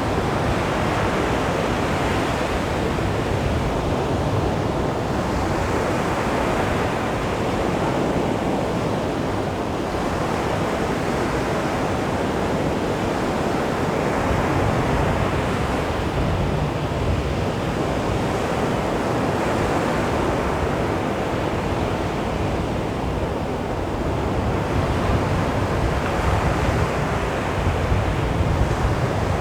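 Sea waves washing on a beach: a steady surf hiss that swells and ebbs every few seconds as the waves break and run up the shore, with some wind on the microphone.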